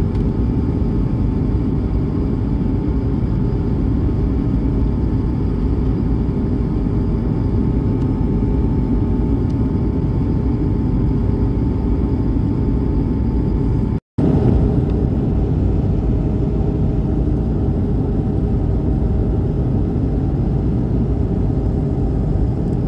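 Airbus A220-300 cabin noise in flight: the steady rumble of its Pratt & Whitney PW1500G geared turbofans and the airflow, heard from a window seat beside the engine. A split-second gap breaks it once, about fourteen seconds in.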